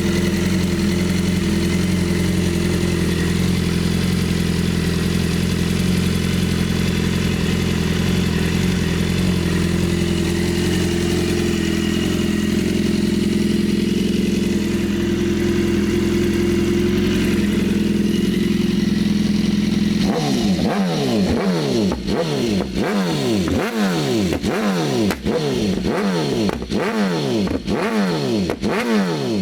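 BMW S 1000 RR HP4's inline-four engine idling steadily while warming up after a cold start. About two-thirds of the way in it breaks into a rapid series of throttle blips, the revs rising and falling roughly once a second.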